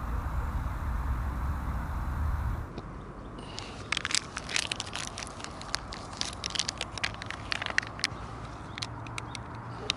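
A steady low rumble for the first couple of seconds, then a plastic instant-coffee stick sachet being crinkled and torn open by hand: many quick, sharp crackles from about three and a half seconds in.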